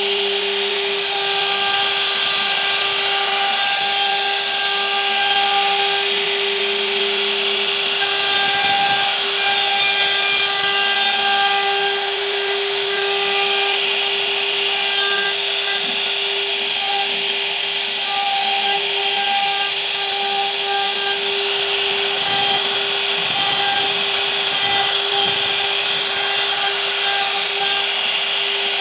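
CNC router spindle carving decorative grooves into a wood panel: a steady whine from the spinning spindle over the hiss of the bit cutting wood, with faint higher tones coming and going as the cut moves along.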